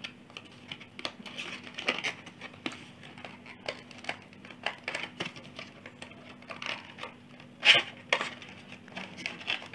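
Small cardboard retail box being opened by hand, paperboard flaps and the inner tray scraping and clicking, with two louder taps near the end. A faint steady low hum runs underneath.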